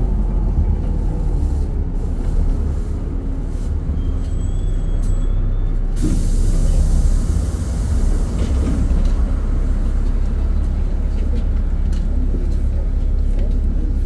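Cabin sound of a LiAZ 5292.67 city bus, its YaMZ-53624 natural-gas engine giving a steady low rumble. About six seconds in, a sudden hiss of compressed air from the air brakes starts and fades over a second or two as the bus comes to a stop.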